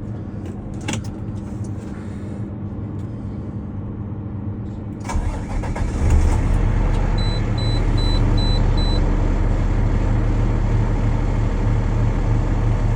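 A few clicks and knocks in the cab, then an International water truck's engine is started about five seconds in and settles into a steady idle. A dashboard warning chime beeps about five times shortly after it catches.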